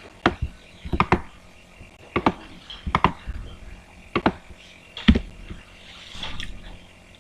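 Computer keyboard keys tapped in scattered, irregular clicks, some in quick pairs.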